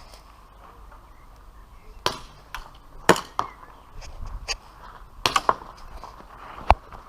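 Airsoft pistols firing: about eight sharp snaps in irregular short volleys, the loudest about three seconds in.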